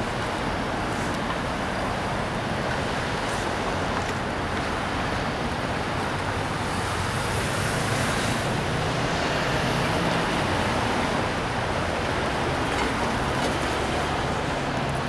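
Union Pacific freight train rolling past: a steady rumble and hiss of wheels on rail.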